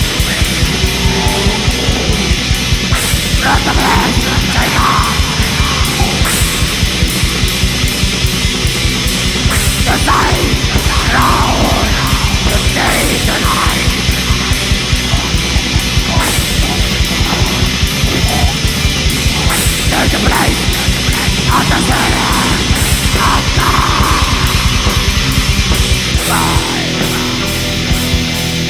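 Black metal music: fast, relentless drumming under distorted guitars, with harsh shrieked vocals rising and falling over it.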